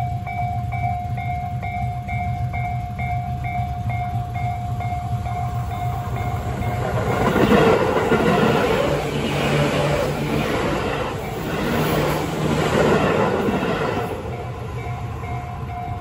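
Japanese level-crossing alarm bell, the Tojo-type electronic bell sound, ringing in a steady repeated tone. From about seven seconds in a Tobu 8000-series electric train passes, its wheels clacking over the rail joints for about seven seconds and largely covering the bell. The bell is heard again near the end.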